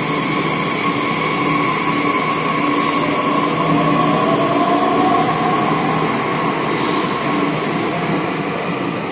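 Delhi Metro electric train pulling out of the station: a steady rumble of wheels on rails with a motor whine. One whine rises in pitch about three to five seconds in as the train gathers speed, and the sound eases off a little near the end.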